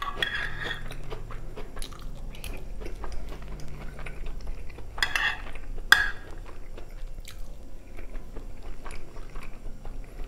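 Close-up chewing of chicken stroganoff, rice and crunchy shoestring potato sticks, with a metal spoon scraping and clinking in a glass baking dish. Two sharp clinks of the spoon on the glass come about five and six seconds in.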